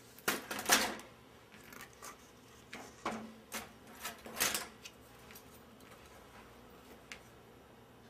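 Short clicks and rubbing scrapes of small hand tools being handled and worked over gum paste on a work surface, in two bursts about a second in and again around three to four and a half seconds in.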